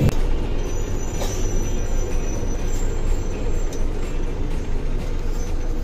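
Steady engine and road noise heard from inside a moving city bus.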